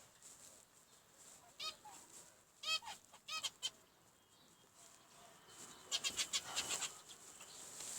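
Zebra finches calling: a few short, arched nasal calls spaced a second or so apart, then a quick run of rapid calls about six seconds in.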